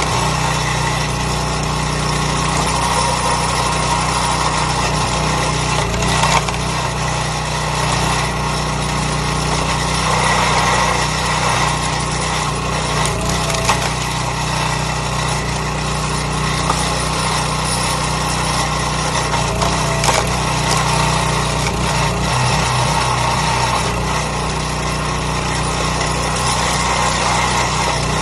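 Small gas engine of a log splitter running steadily, with occasional sharp knocks and cracks of wood.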